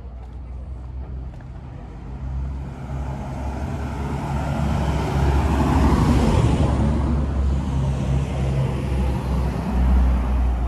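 Road traffic passing close by: an ambulance van drives past without its siren, its engine and tyre noise swelling to a peak about halfway and then fading. A second car, an SUV, passes near the end.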